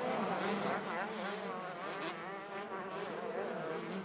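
Several 125cc two-stroke motocross bikes racing on the track, their engines buzzing, rising and falling in pitch as the riders open and close the throttle.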